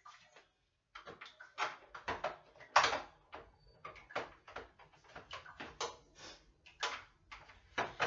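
Irregular knocks and clatter of plastic refrigerator drawers and containers being pulled out and handled: a string of short, sharp knocks, the loudest about three seconds in.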